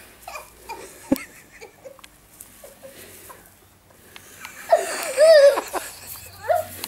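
A person laughing: a loud, high, wavering laugh about five seconds in, with a shorter burst near the end. A sharp knock comes about a second in.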